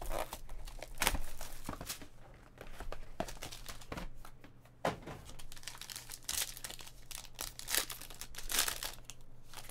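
Foil and clear plastic wrapping from a sealed trading-card box crinkling and being torn open by hand, in a run of irregular crackles.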